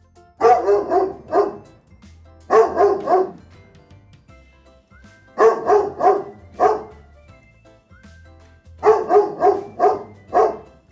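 A dog barking in four short runs of several quick barks each, about two to three seconds apart.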